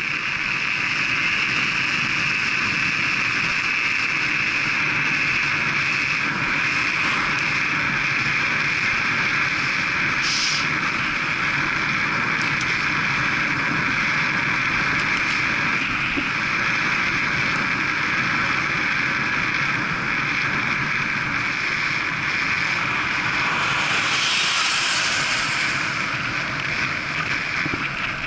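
Steady wind rush over the microphone of a camera on a road bike riding at about 28 mph, with tyre noise on the tarmac underneath. A brief sharper hiss comes about ten seconds in, and a longer one a few seconds before the end.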